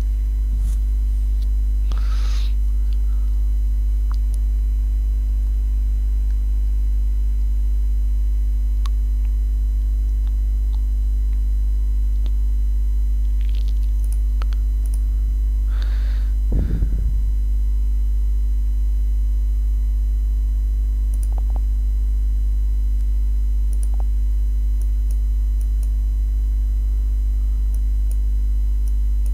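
Steady electrical mains hum with a strong low drone and its overtones. A few faint brief noises sit on top, the loudest about two-thirds of the way through.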